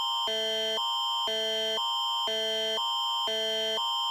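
Canadian Alert Ready attention signal: two electronic chords alternating about every half second over a steady high tone. It is the alarm that introduces an emergency broadcast alert, here a tornado alert.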